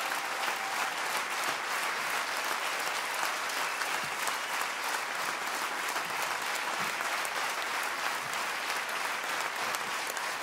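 Live audience applauding steadily, many hands clapping at once.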